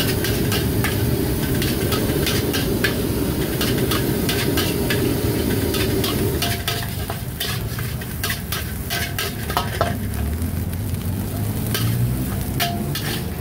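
Fried rice being stir-fried in a wok: a metal spatula clinks and scrapes rapidly against the pan over a steady sizzle and low rush, which eases a little past halfway.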